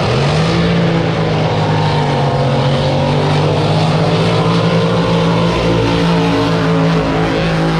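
Drag boat's racing engine running at full throttle: a loud engine note climbs in pitch within the first half second, then holds steady for the rest of the run.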